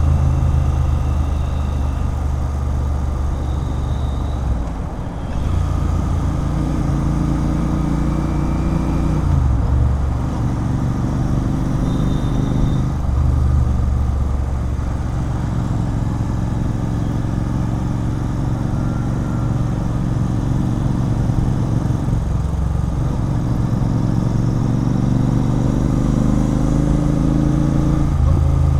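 Royal Enfield Continental GT 650's 648 cc parallel-twin running through a loud Red Rooster Performance aftermarket exhaust while riding. The engine note dips and picks up again several times.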